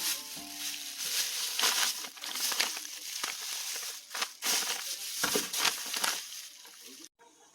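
Irregular crinkling and crunching handling noise, with a series of separate louder rustles.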